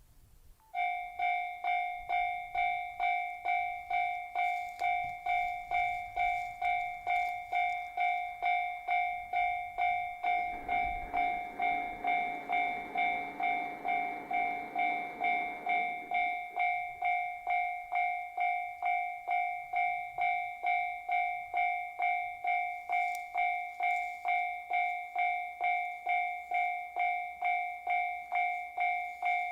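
Japanese railway level-crossing warning bell ringing steadily, about two strokes a second. A KiHa 261 series diesel limited express train passes over the crossing for about six seconds in the middle.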